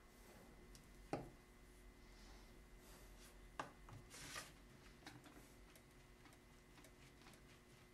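Near silence with faint handling sounds of clay being pressed onto a wire armature: two small sharp clicks, about a second in and again about three and a half seconds in, a brief soft rub just after the second, and a few tiny ticks.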